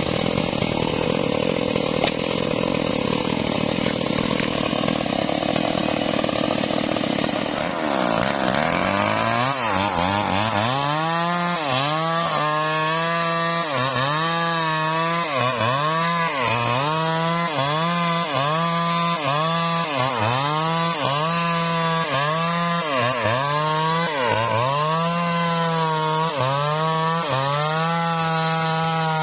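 Stihl two-stroke chainsaw cutting into a thick rain tree trunk at full throttle. From about a third of the way in, the engine pitch dips and recovers again and again, about once a second, as the chain bites and loads the engine.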